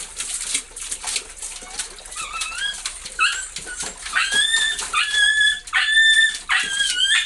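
Siberian husky puppy splashing and pawing in a steel pot of water, then whining in a string of high, wavering calls from about two seconds in, longer and louder near the end.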